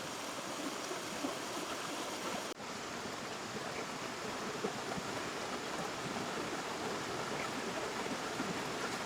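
River water flowing steadily over stones, an even rushing babble with a momentary dropout about two and a half seconds in.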